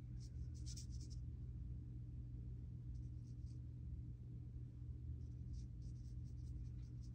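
Paintbrush laying ink onto paper, faint short scratchy strokes in three spells: near the start, about three seconds in, and from about five seconds on. A steady low hum runs underneath.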